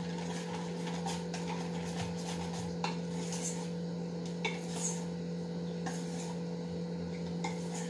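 Wire whisk stirring thick cake batter in a metal bowl, with a few light clinks of the whisk against the bowl's side. A steady low hum runs underneath.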